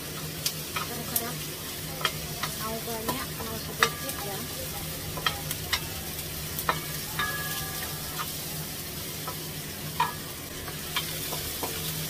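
Shallots and chillies sizzling as they are sautéed in a nonstick wok, stirred with a wooden spatula that scrapes and clacks against the pan at irregular moments over a steady hiss.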